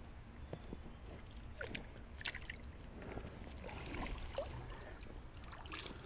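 Creek water sloshing and splashing faintly as a small two-pole seine net is swept through a shallow pool. About four seconds in it is lifted out, with water streaming and dripping off the mesh.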